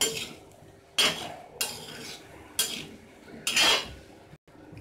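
Metal spatula stirring peanuts through hot salt in an iron kadhai: about five separate scraping strokes against the pan, each short, with quieter gaps between.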